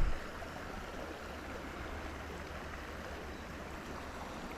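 Steady rushing outdoor background noise, water-like, with one short knock right at the start.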